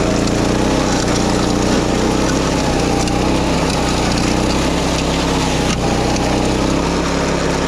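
Small petrol engine of a walk-behind self-propelled mower running steadily under load as it cuts through tall grass and weeds.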